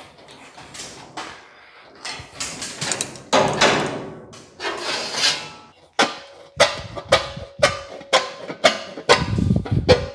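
A thin sheet-metal body panel rattles, wobbles and scrapes as it is handled and fitted by hand, with a few irregular clanks. From about six seconds in, plucked-string background music with a steady beat comes in.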